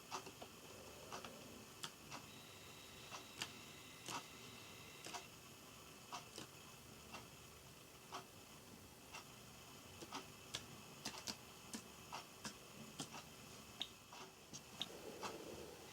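Java sparrow pecking and nibbling at pea sprouts: faint, sharp beak clicks at an irregular pace, closer together in the second half.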